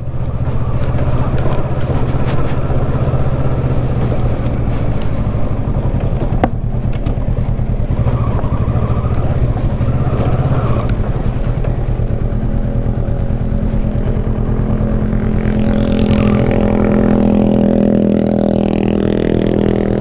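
Kawasaki Versys 650's parallel-twin engine running as the bike rolls slowly along, its note turning steadier and more even in the last several seconds as it pulls up. A single sharp click about six and a half seconds in.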